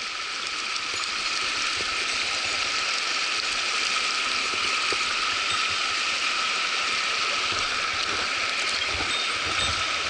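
Mountain headwater stream rushing over rocks and small cascades: a steady, even hiss of moving water.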